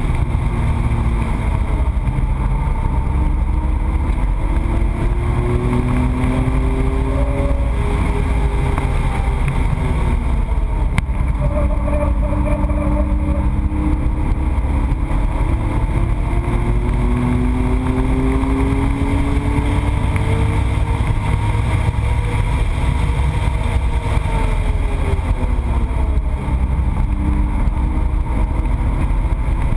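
Race car engine heard from on board at track speed, its pitch climbing under acceleration and dropping off several times as the car works through the corners, over heavy road and wind noise.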